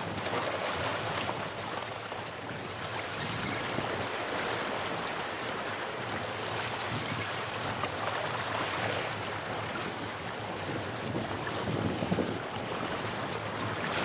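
Sea waves washing over a rocky shoreline, swelling in a few surges, with wind buffeting the microphone.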